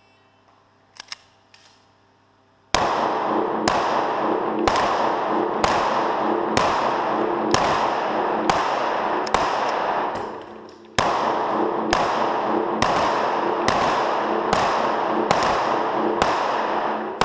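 CZ P-07 9×19 mm pistol fired at a steady pace of about one shot a second, in two strings of about eight shots with a short pause between them, each shot echoing off the walls of an indoor range. A couple of faint clicks come about a second in, before the first shot.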